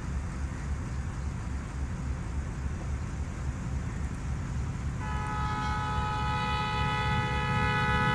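Approaching Pakistan Railways AGE-30 diesel-electric locomotive: a low throbbing rumble growing steadily louder, then about five seconds in its multi-tone air horn sounds one long, steady blast.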